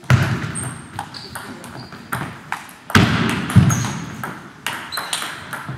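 Table tennis rally: the celluloid ball clicking off the bats and the table in quick, irregular succession, some hits with a short high ping. Two louder, longer noises come near the start and about three seconds in.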